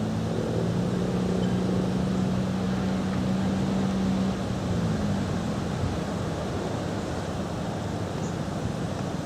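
Federal Signal 2001-SRN rotating tornado siren winding down after its test run: a low steady tone that slides lower about halfway through and dies away into wind noise on the microphone.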